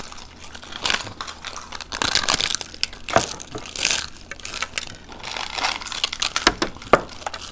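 Crisp hollow fried fuchka (panipuri) shells cracking and crunching as they are bitten and broken open by hand, a close, irregular run of sharp crackles and crunches.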